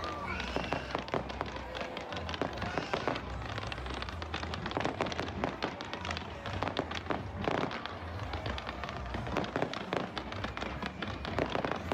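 Fireworks going off in a dense, continuous string of sharp bangs and crackles.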